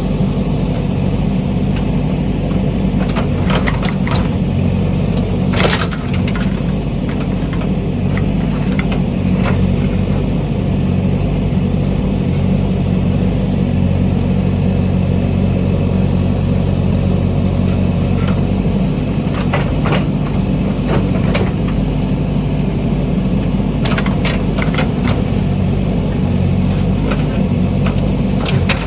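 JCB backhoe loader's diesel engine running steadily, with scattered sharp knocks and clanks, the clearest about six seconds in and around twenty seconds.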